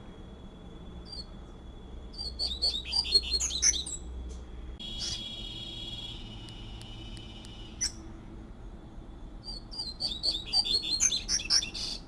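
Double-collared seedeater (coleiro) singing: two phrases of rapid high notes, the first about two seconds in and the second near the end, with a held high sound between them.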